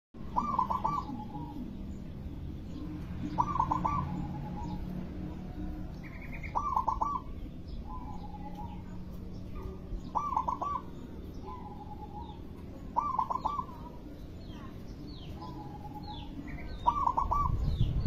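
Zebra dove (perkutut) singing its rolling coo phrase six times, about every three seconds, each phrase followed by a short lower note. Small birds chirp faintly and high in the background.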